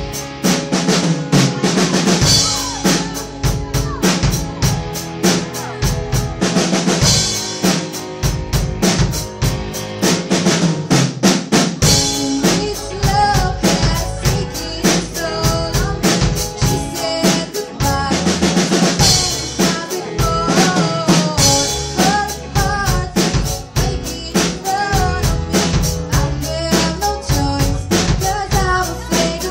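Live rock band playing: a drum kit keeps a steady beat of kick, snare and cymbals under electric guitars and keyboard. About thirteen seconds in, a wavering lead melody comes in over the top.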